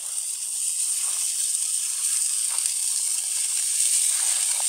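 Raw beef burger patties sizzling as they are laid on the hot grate of a charcoal kettle grill over direct heat from the coals: a steady high hiss with a few faint crackles.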